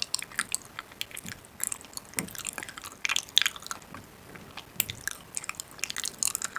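A person biting and chewing crunchy food close to the microphone: irregular crisp crunches and clicks.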